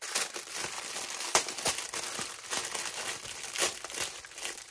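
Small plastic bags of diamond painting drills crinkling as they are handled, with several sharper crackles among a steady rustle.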